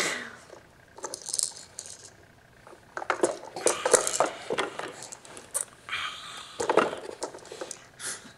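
Plastic toys on a baby's activity walker tray clattering and clinking in irregular bursts as the baby slaps and spins them, among them a clear plastic rattle ball.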